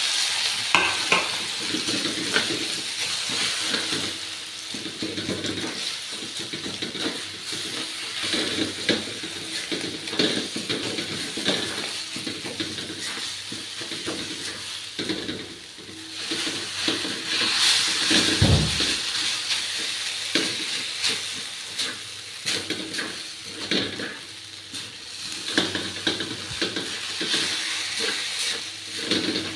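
Maggi instant noodles stir-frying in a stainless steel wok: a steady sizzle, with a spatula scraping and tapping against the metal over and over as the noodles are tossed.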